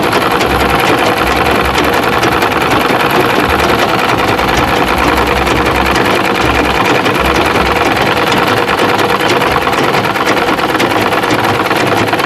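Electric sewing machine running steadily at speed, stitching crinoline onto the hem through three layers of fabric.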